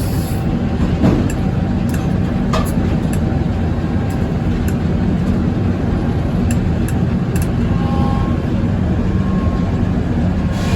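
Circular sawmill with inserted teeth running steadily, with a few sharp ticks and knocks over the drone.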